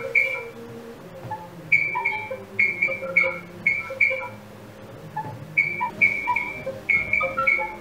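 A quick, irregular run of short, clear chiming notes, mostly high-pitched with some lower ones, like a plucked or bell-like melody.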